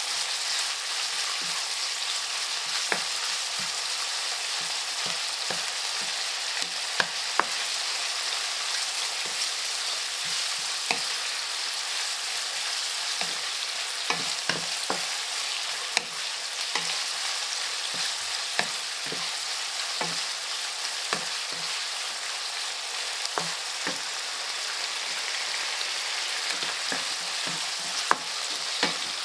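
Tofu and roasted meat sizzling steadily in hot oil as they are stir-fried, with irregular knocks and scrapes of a spatula against the pan.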